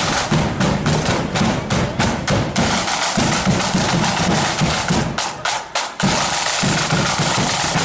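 Marching flute band's drum corps, snare drums and bass drum, playing a loud, continuous parade beat, with a quick run of strokes a little past five seconds in.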